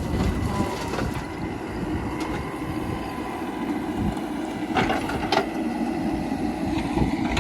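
Heavy diesel machinery running with a steady low rumble, and two sharp knocks about five seconds in.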